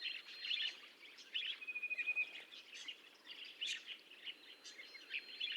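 Budgerigar chattering faintly: quick runs of short high chirps, with one brief held whistle about two seconds in.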